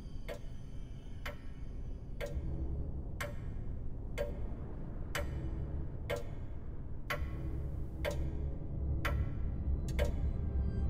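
Clock ticking steadily about once a second, each tick ringing briefly, over a low pulsing drone.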